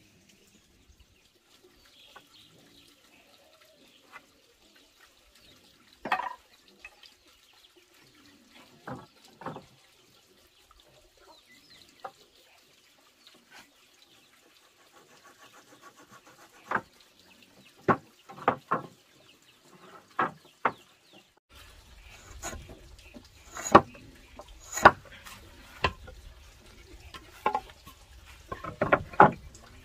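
Hand woodworking on a plank: short, sharp knocks and taps of tools on wood, sparse at first and coming thick and fast in clusters after about twenty seconds.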